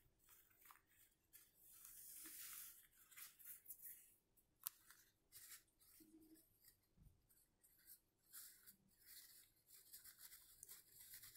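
Faint rustling and rubbing of fabric being handled, as a freshly sewn cloth face mask is turned right side out, with a few small clicks.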